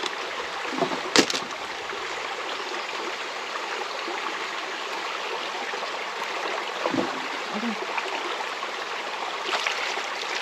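River water running steadily, with one sharp click about a second in.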